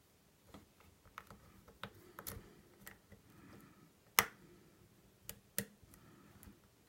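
Faint, irregular metallic clicks and taps of a lock pick and tension wrench single-pin picking an old wafer lock, with one sharper click a little past the middle.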